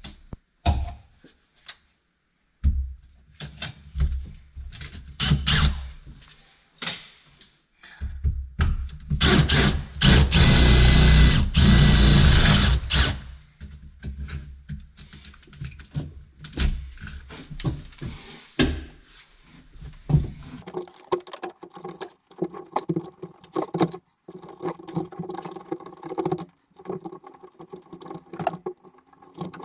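Cordless drill with a flat spade bit boring a cable hole through the wall: a few short bursts, then one long run of about five seconds near the middle. Lighter knocks and handling clicks follow.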